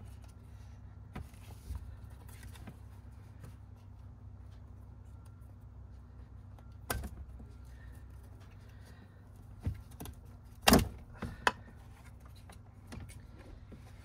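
Plastic clicks and rattles as push-type wiring connectors are squeezed and pulled off a car's centre console and the console is handled free, the loudest a snap about seven seconds in and three sharp clicks near eleven seconds, over a steady low hum.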